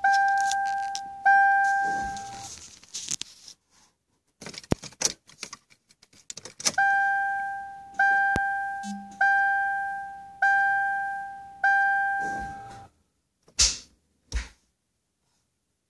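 Car's electronic warning chime, the kind that sounds with the key in the ignition or a door open, ringing as single, evenly spaced dings about every 1.2 seconds, each one fading out. It pauses for a few seconds of clicks and key rattles, then rings again. Two louder thumps come near the end.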